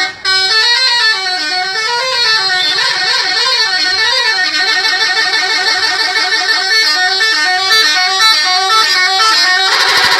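Indonesian "telolet" bus horn, a multi-tone musical horn, playing a tune whose notes rise and fall for the first few seconds, then fast repeated warbling notes. A different, denser warbling horn sound takes over just before the end.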